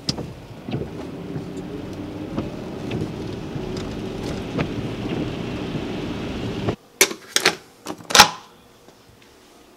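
Steady road rumble inside a car driving on wet streets, with a few light ticks. It cuts off suddenly and is followed by a metal doorknob being turned and a door latch clicking several times, the last click the loudest.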